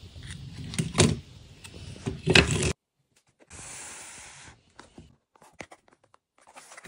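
Hands handling the dirt-caked circuit board and plastic housing of a Nokia 6100, the parts knocking and clicking, with the loudest clicks about one second and two and a half seconds in. After a sudden cut, hands rub across a taped cardboard parcel and tap at it lightly.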